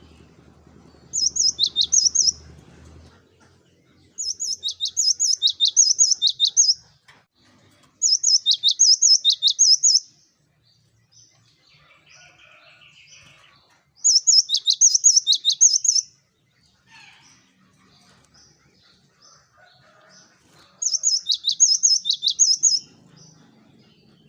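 Cinereous tit (gelatik batu) singing in five bouts of fast, high, repeated notes, each lasting two to three seconds, with pauses of a few seconds between them.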